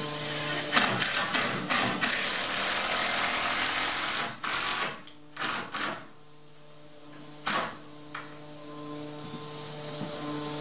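Pneumatic nail gun fastening a door jamb through its shims: a loud rush of hissing air with a few sharp knocks in the first four seconds, then several short sharp shots between about four and eight seconds in.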